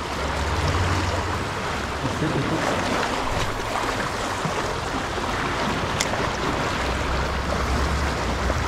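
Small sea waves washing and lapping over shoreline rocks, with wind rumbling on the microphone. A single sharp click comes about six seconds in.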